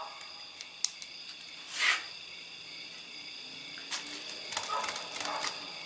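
Plastic packaging being handled: a couple of light clicks, a short rustle about two seconds in, then a stretch of crinkling near the end, over steady high-pitched tones in the background.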